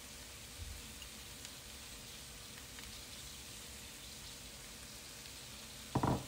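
Vegetables frying gently in a pan, a faint steady sizzle, with a short knock near the end.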